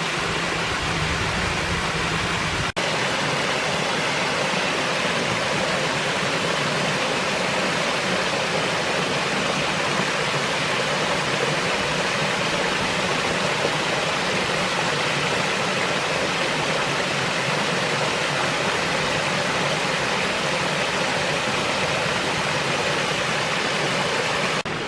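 Creek water pouring over a small waterfall: a steady, even rush. About three seconds in it changes abruptly and loses its low rumble.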